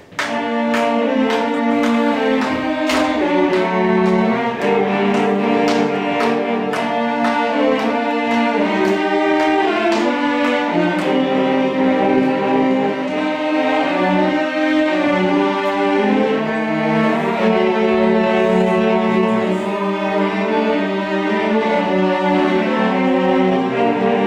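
A string orchestra of cellos, violins and basses playing sustained notes in strict, even time, with faint regular clicks about twice a second marking the beat. The playing is meant to be completely metronomic and unmusical, so the ensemble can feel where the short eighth notes line up.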